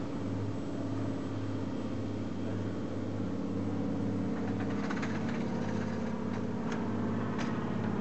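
RiverCat ferry's engines running with a steady low drone while under way, over an even hiss of wake and wind. A few short clicks come in the second half.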